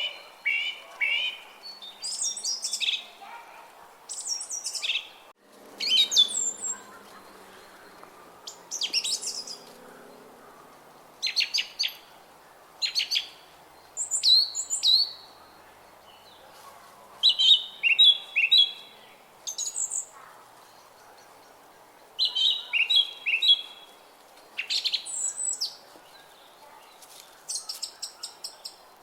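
Songbirds singing in short phrases of quick, high chirps and whistled sweeps, one phrase every second or two, over a faint background hum.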